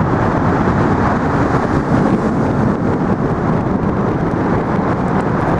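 Steady, loud rumble of road traffic on the Manhattan Bridge, mixed with wind buffeting the microphone.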